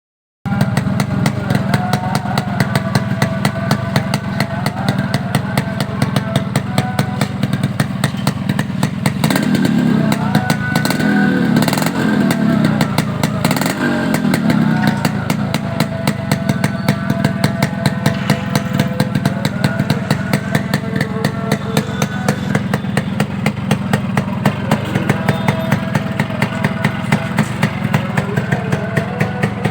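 Yamaha RXS115's two-stroke single-cylinder engine idling through its stock 5H5 silencer, with a few quick revs up and back down in the middle before it settles back to a steady idle.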